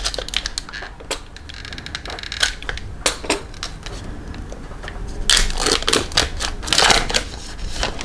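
Trading cards and a card-pack wrapper being handled: scattered crinkles and clicks, with a denser stretch of crinkling about five seconds in as the pack is torn open.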